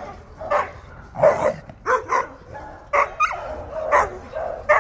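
Dogs barking during rough play, a string of short, sharp barks coming irregularly, about two a second at times.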